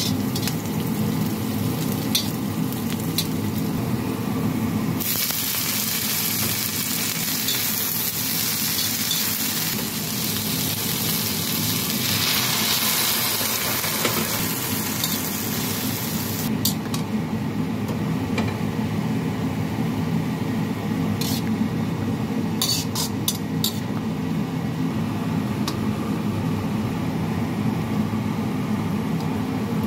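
Stir-frying vegetables in a wok with a metal spatula. A strong sizzle rises about five seconds in and eases off after about sixteen seconds, with scattered clicks and scrapes of the spatula against the wok, over a steady low hum.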